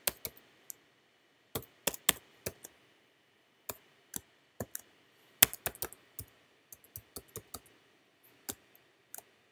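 Typing on a computer keyboard: irregularly spaced single key clicks with short pauses between, one key strike louder than the rest a little past halfway.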